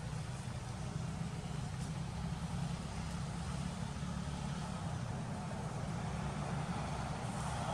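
Steady low outdoor rumble with a faint hiss above it and no distinct events.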